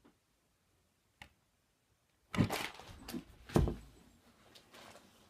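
A person getting up off a bed and moving about: a couple of faint clicks, then from about two seconds in rustling and shuffling with two loud thumps about a second apart.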